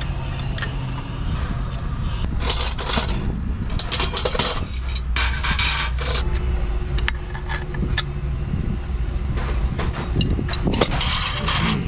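Hand tools working on a truck engine: a ring spanner clinking and scraping on metal bolts and brackets in many short irregular clicks, over a continuous low engine rumble.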